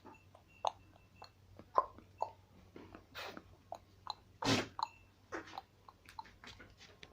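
Goats in a pen making scattered short noisy sounds and clicks, the loudest about four and a half seconds in.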